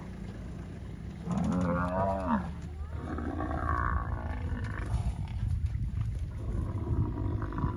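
A Cape buffalo bellows in distress, one drawn-out call that rises and falls, over the low, continuous growling of lions mauling it. A higher, thinner call follows about a second later.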